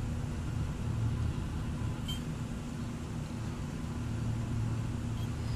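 Steady low background rumble, with a faint short click about two seconds in.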